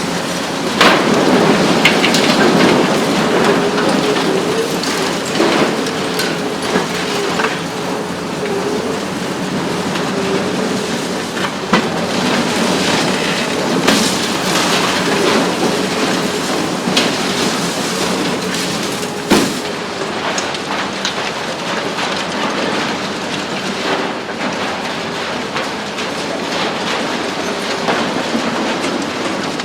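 High-reach demolition excavator (Hitachi ZX 870 XXL) with a hydraulic shear breaking up a concrete building: a continuous rushing clatter of concrete crunching and rubble falling, dotted with sharp cracks, over the machine's engine and hydraulics droning underneath. One louder crack comes about two-thirds of the way through.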